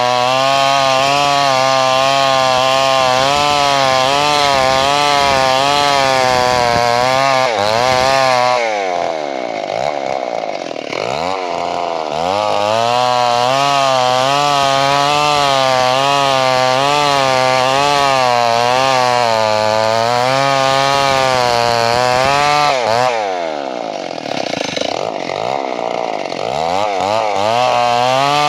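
Two-stroke chainsaw running at high revs while cutting wood, its pitch wavering up and down under load. The revs drop away twice, about nine seconds in and again about twenty-three seconds in, then climb back.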